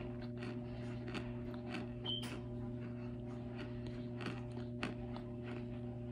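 Crunchy baked cornstarch chunks being chewed: a run of short, irregular crunches about two to three a second, over a steady low hum.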